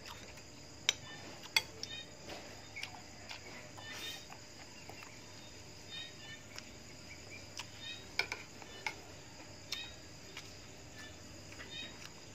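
A metal spoon and fork clink and scrape against china plates while eating, in sharp clicks now and then. Behind them, night insects keep up a steady chirping.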